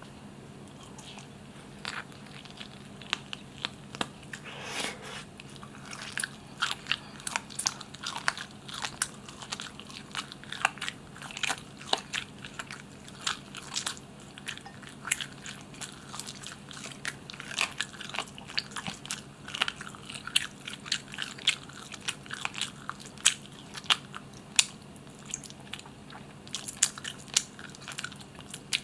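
Close-miked chewing and biting of barbecued chicken: irregular wet mouth clicks and crunches, several a second, over a faint steady hum.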